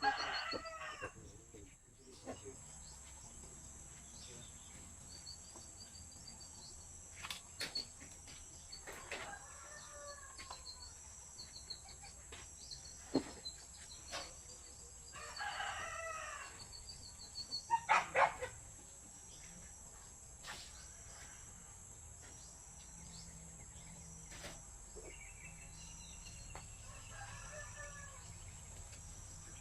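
Rooster crowing about four times, each crow lasting about a second, over a steady high-pitched insect drone. A few sharp knocks break in, the loudest a quick cluster about eighteen seconds in.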